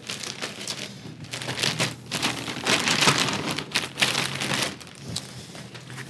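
Irregular rustling and crackling of parts being handled, over a faint low hum.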